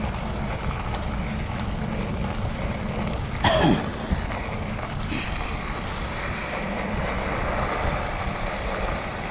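Mountain bike rolling over a dirt trail: a steady rumble of tyres on dirt with wind buffeting the microphone. About three and a half seconds in, a short pitched squeal falls sharply in pitch, and a fainter one follows a second and a half later.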